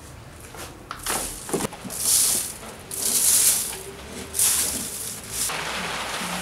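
Dry sand shovelled into a wooden box around foil-capped casting molds: about four hissing pours off the shovel, with a couple of knocks of the shovel about a second in. An even, steady hiss takes over near the end.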